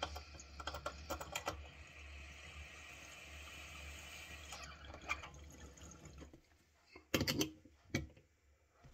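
Water bubbling in a glass water pipe as a steady draw is pulled through it for about four and a half seconds, then stops. Two sharp knocks follow near the end.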